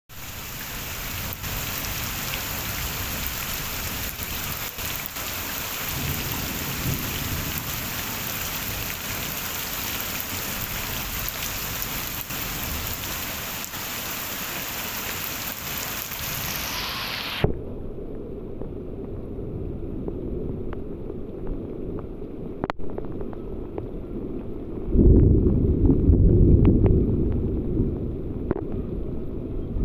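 Steady hiss of heavy rain falling. About seventeen seconds in, it cuts abruptly to a muffled, low-pitched rain sound, with a loud low rumble starting a few seconds before the end.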